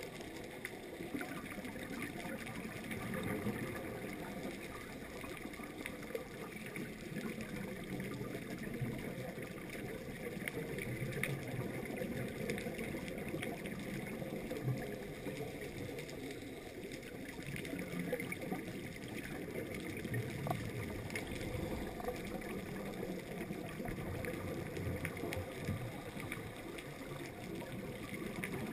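Muffled underwater ambience picked up by a GoPro in its waterproof housing: a steady low rushing with scattered faint clicks and crackles.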